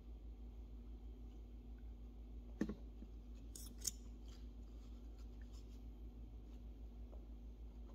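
Faint handling of makeup packaging: a sharp click about two and a half seconds in and a brief crisp snap near four seconds, with a few softer ticks, over a steady low hum.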